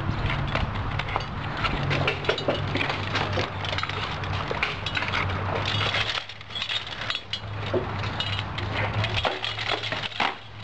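Practice weapons clacking and knocking against each other and against shields, many sharp strikes in quick irregular succession during group sparring, over a steady low hum.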